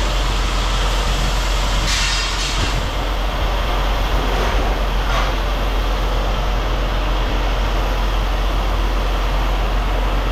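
Heavy diesel machinery running steadily, with a strong low hum and a short high hiss or squeal about two seconds in.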